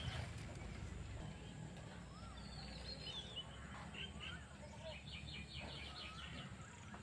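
Birds chirping and calling, with a quick run of about eight repeated notes about five seconds in.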